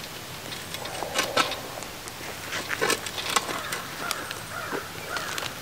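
Scattered short chirping calls, with a few light clicks among them.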